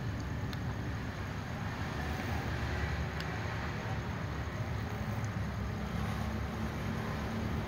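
Steady low rumble of distant road traffic, with a few faint ticks.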